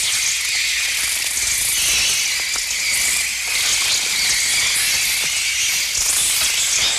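Mixtur-Trautonium electronic bird effect: a dense, steady high hiss with faint flickering streaks, the synthesized sound of a mass of birds' wings and cries.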